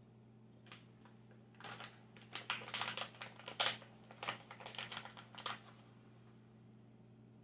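Small plastic candy package handled in the hands: a run of quick, uneven clicks and crackles over about five seconds, loudest about three and a half seconds in.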